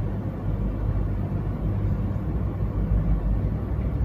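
Steady low hum and rumble, unchanging, with no distinct events.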